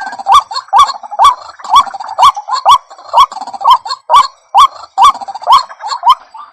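White-breasted waterhen (ruak-ruak) calling, a loud series of short hooked notes repeated about twice a second, each with a sharp click.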